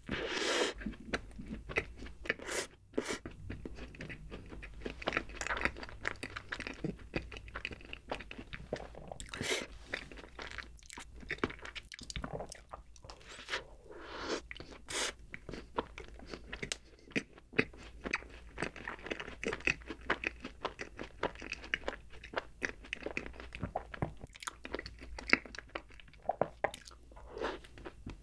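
A person biting into and chewing an Oreo ice cream sandwich, with many irregular crunches.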